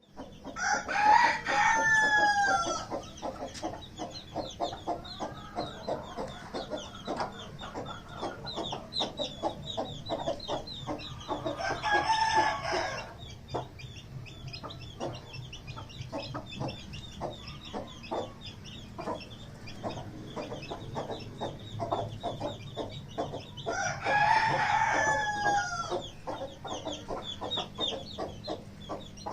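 A rooster crowing three times, about twelve seconds apart. Between the crows, chicks peep rapidly and without pause, and hens cluck.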